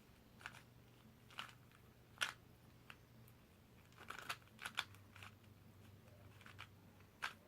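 Faint, irregular plastic clicks of a 2x2 speed cube being turned in the hands, about a dozen short clacks scattered through the stretch with small clusters about four and five seconds in.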